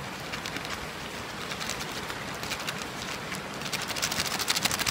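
Paper fries bag crinkling and rattling as it is handled with fries and seasoning powder inside; the crackling gets quicker and louder near the end.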